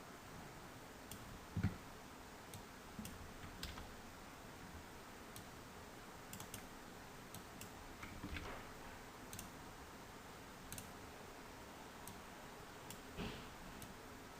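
Faint, scattered clicks of a computer mouse, irregularly spaced, with a few soft thumps, the loudest about two seconds in.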